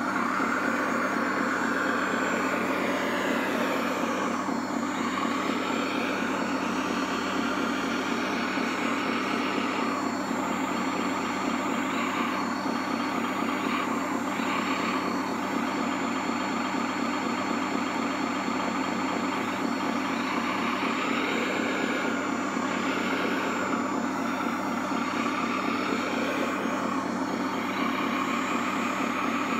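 Radio-controlled model LiuGong wheel loader working: a steady simulated diesel engine sound runs throughout, with whines that rise and fall several times as it drives and lifts its bucket.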